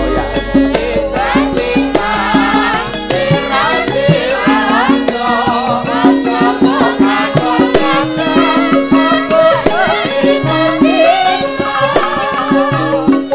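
Javanese gamelan music: a young sinden sings a wavering, ornamented melody over repeated bronze metallophone tones and kendang hand-drum strokes. A large gong's deep hum, struck just before, rings at the start and fades away over the first few seconds.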